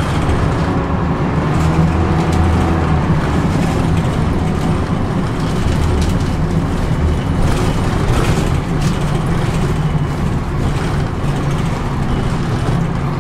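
Dennis Dart SLF single-deck bus's diesel engine running steadily as the bus drives along, heard from inside the passenger saloon, with road noise and occasional rattles from the body.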